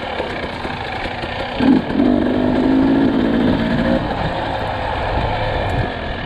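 Husqvarna TE300i two-stroke single-cylinder dirt bike engine running, with a quick surge in revs about a second and a half in and a couple of seconds at higher revs before it settles.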